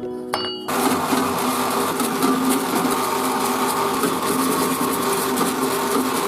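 An electric power tool starts a little under a second in and runs steadily, with a hum under a grinding noise: the kind of sound made when working rust off metal.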